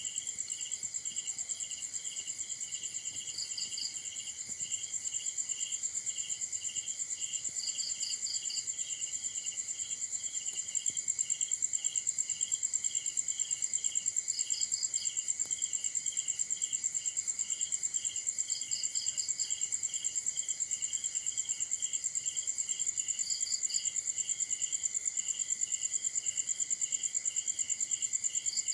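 Night insects, crickets, calling together: a steady high-pitched trill, a lower chirp pulsing about two to three times a second, and a short rapid trill every four or five seconds.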